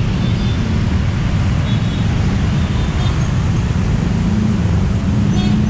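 Dense road traffic passing close by, mostly motor scooters and cars, making a steady low engine rumble. One engine's hum grows and rises a little near the end.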